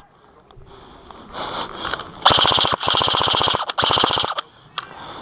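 Airsoft gun firing on full auto: three short bursts in quick succession, each a rapid, even rattle of shots about half a second long.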